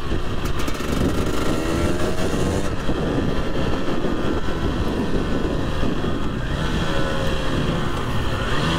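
Husqvarna two-stroke dirt bike engine revving up and down as it is ridden, its pitch rising and falling several times, over a heavy low wind rumble.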